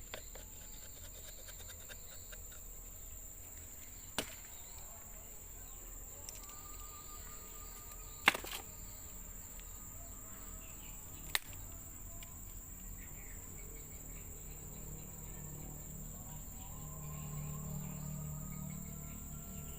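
Rainforest insects keeping up a steady high-pitched drone, broken by three sharp clicks or snaps, the loudest about eight seconds in. A low hum comes up in the last few seconds.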